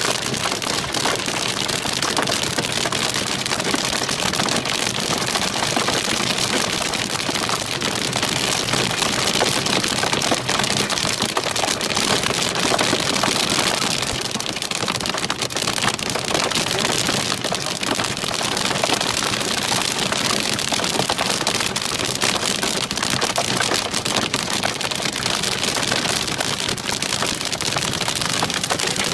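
Heavy hail pelting a car's roof and windscreen, heard from inside the car: a dense, steady clatter of countless hard ticks.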